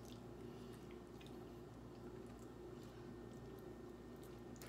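Faint chewing and wet mouth sounds of people eating rotisserie chicken by hand, with scattered small clicks, over a low steady hum.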